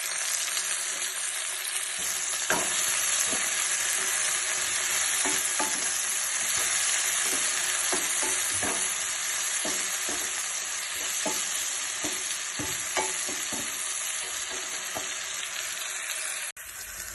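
Ivy gourd slices sizzling steadily in hot oil in a kadai, with a spoon tapping and scraping against the pan as they are stirred. The level drops suddenly near the end.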